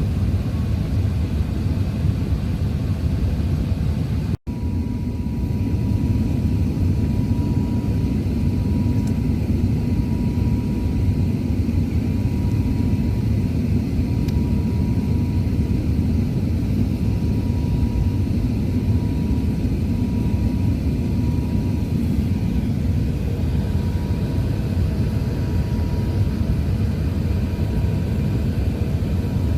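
Airbus A380-800 airliner cabin noise: a steady low rumble of engines and airflow, with a faint steady high tone through most of it. It cuts out for an instant about four seconds in.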